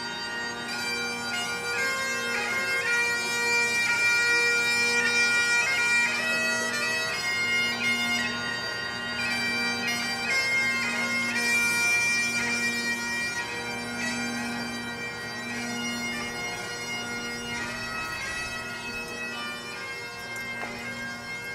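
Bagpipes playing a slow tune over steady drones, fading a little near the end.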